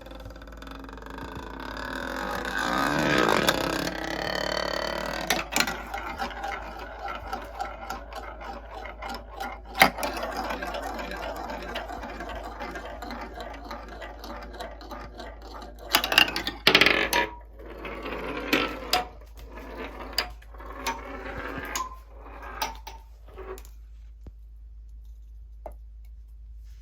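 Marbles rolling and rattling along marble-run track, with frequent sharp clicks and clacks as they drop and knock against the pieces. About two-thirds through there is a run of louder separate clacks, then the rolling thins out and quiets near the end.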